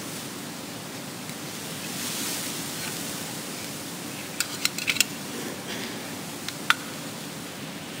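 Steady hiss of room tone with a faint low hum, broken about halfway through by a quick run of five sharp clicks, and two more clicks near the end.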